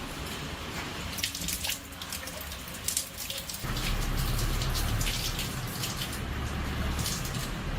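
Water running and splashing with scattered clicks, and a steady low hum that starts suddenly about three and a half seconds in.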